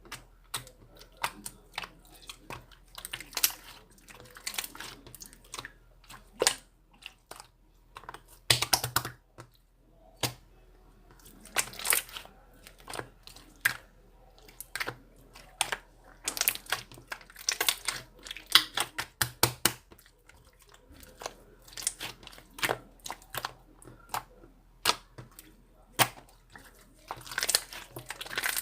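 Slime being squished, stretched and poked by hand, making irregular sticky clicks and crackling pops, some in quick clusters.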